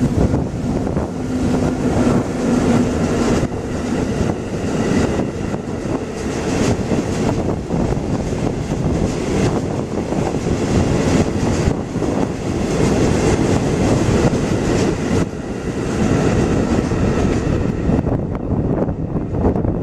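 Freight train of hopper wagons running past at speed, a steady rumble with repeated clicks of steel wheels over rail joints.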